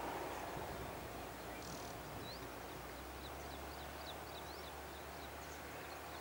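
Small birds chirping, short high notes several a second with a few quick rising calls, over a faint steady outdoor hiss.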